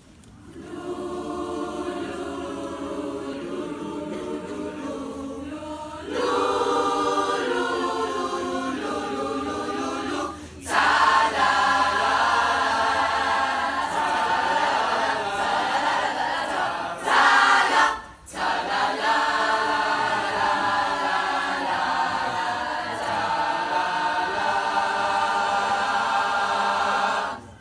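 Large mixed choir of young men and women singing in parts, led by a conductor. The singing swells louder about six seconds in and again about ten seconds in, with two brief breaks, and ends just before the close.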